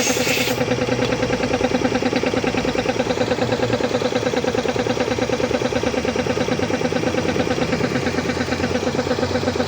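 Piston air compressor running with a fast, even chugging pulse. A hiss above it cuts off about half a second in.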